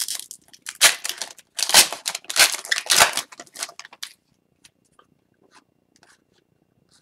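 A trading-card pack wrapper being torn open and crinkled, a dense crackly rustle for about four seconds. After that come a few faint soft ticks as the cards are handled.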